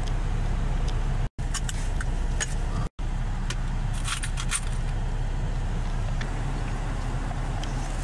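Car engine running, heard from inside the cabin as a steady low rumble, with a few short high clicks about two seconds in and again around four seconds in.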